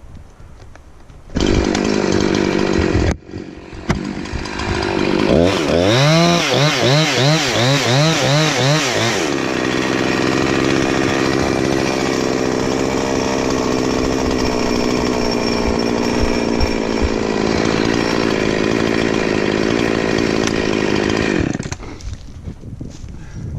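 Chainsaw cutting into a birch stump. It starts about a second in and drops away briefly. It then revs up and down several times and runs steadily at high speed for about twelve seconds before cutting off near the end.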